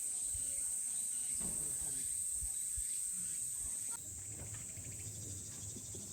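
Steady high-pitched chorus of summer insects, with a few soft low knocks. About four seconds in, the chorus drops in level and shifts slightly in pitch.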